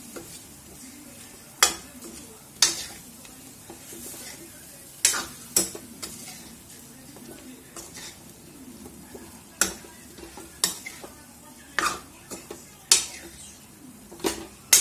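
Steel ladle stirring chicken pieces in masala around a stainless-steel kadai, clanking and scraping against the pan roughly once a second at uneven intervals. Under the clanks, the chicken sizzles softly as it fries in oil.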